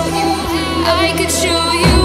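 Background music: an electronic track with a steady bass line and held synth notes, with a sweeping swell near the end.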